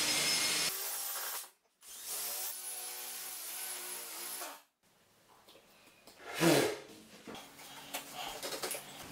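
Cordless drill boring into wood, running in two bursts with a steady motor whine for about two and a half seconds in the middle. Later comes one short loud knock, then light scraping and rubbing.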